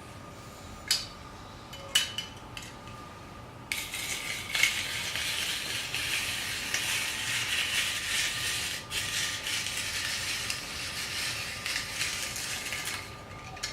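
A couple of clicks, then a steady rasping scrape that starts about four seconds in and runs for about nine seconds. It is a hand-cranked rotary grater's stainless steel drum shredding food.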